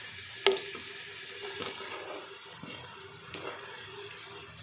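Sliced onions sizzling in hot oil and ghee in a pan, a steady hiss. A sharp clink of a utensil comes about half a second in, with a couple of lighter taps later.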